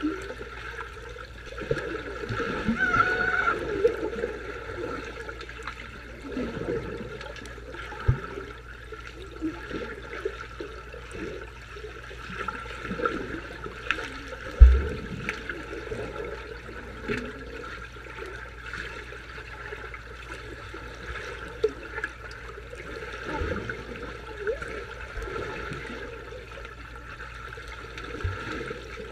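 Water heard from below the surface as swimmers move overhead: steady sloshing and bubbling, with a few sharp thumps, the loudest about halfway through.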